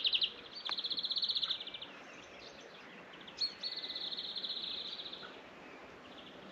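High, rapid trills of evenly spaced pulses held at one pitch: a brief one at the start, then two longer ones of about one and a half to two seconds, over faint outdoor background hiss.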